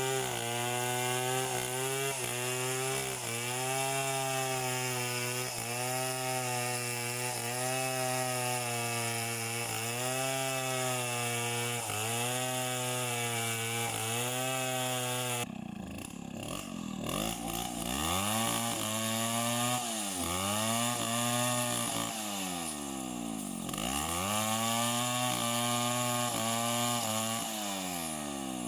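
Two-stroke chainsaw running at a steady speed. About halfway through, its engine pitch starts dropping and climbing back again several times.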